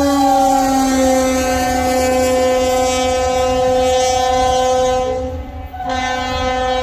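Diesel locomotive air horn sounding a long blast. Its pitch drops over the first second or so as the locomotive passes and moves away, then holds steady. The blast breaks off briefly about five seconds in and resumes, over the low rumble of the passing train.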